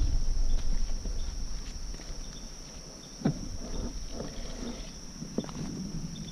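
Footsteps crunching and knocking while walking, over a steady high-pitched drone of summer insects. The footfalls are loudest at the start, with sharper single steps about three and five seconds in.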